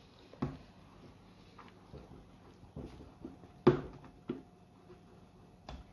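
Hands kneading and pressing shortbread-style tart dough on a wooden worktop: a few soft thumps and knocks, the loudest a little under four seconds in.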